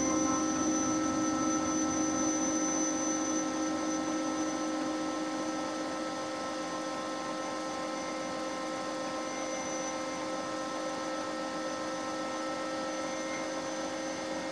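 Bosch stand mixer's motor running on high, a steady whine of several held tones, its wire whisks beating egg whites as sugar is added to bring them to peaks. It grows slightly quieter over the first several seconds, then holds steady.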